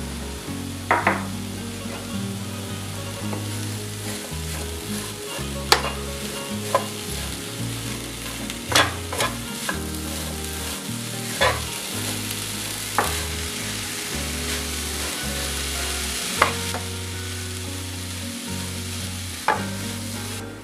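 Diced apples sizzling in a hot frying pan as a wooden spatula stirs them, with a steady hiss and sharp knocks of the spatula against the pan now and then.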